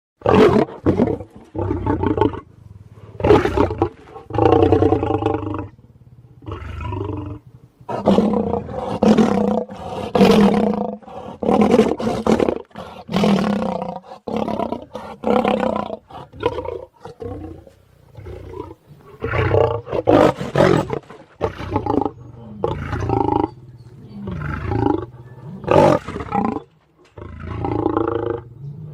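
Lion roar sound effects: a rapid series of lion roars and snarls, one after another with short breaks.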